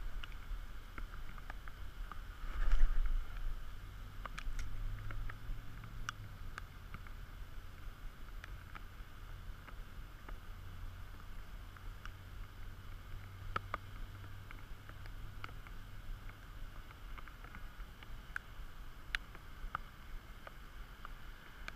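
Wind buffeting the camera microphone as a low, uneven rumble, with scattered light clicks and one louder thump about three seconds in.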